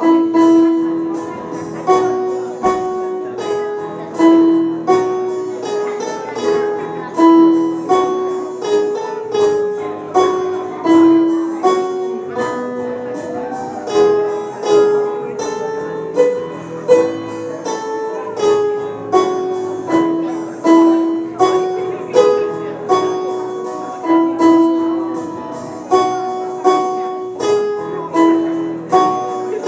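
Electronic keyboard played solo: a continuous melody of pitched notes that start sharply and fade quickly, in a steady rhythm.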